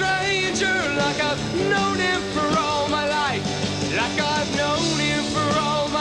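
Rock music: a melody line that slides and bends between notes over steady low held notes.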